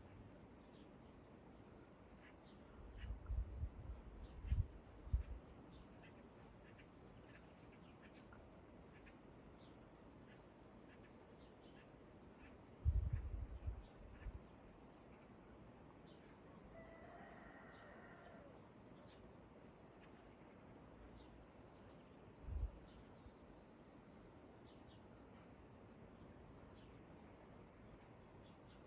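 Faint, steady high-pitched trill of crickets, with scattered short bird chirps. Low bumps break in three times: a cluster about three seconds in, another about thirteen seconds in, and a single short one about twenty-two seconds in.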